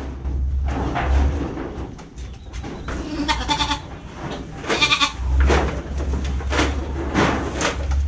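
Goats bleating, with two clear bleats about three and five seconds in, amid shorter knocks and rustling and a low steady hum.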